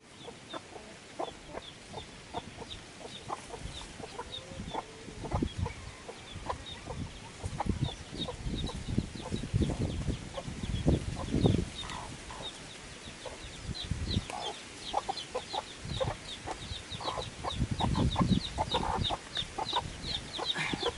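A mother hen clucking among her newly hatched chicks, which peep in quick short chirps, the peeping thickest in the last third. Dull thumps and rustling come in among the calls.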